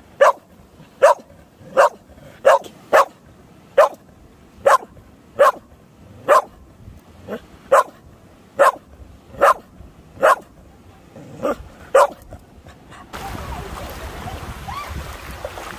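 A dog barking over and over, about sixteen short, sharp barks at roughly one a second. About thirteen seconds in, the barking stops and a steady rushing noise of wind or running water takes over.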